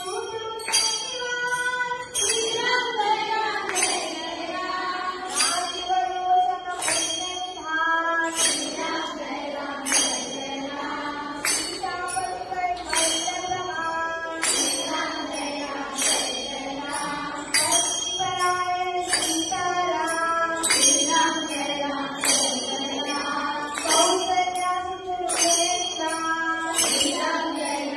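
Devotional song with a singing voice over a steady jingling percussion beat, about three strikes every two seconds.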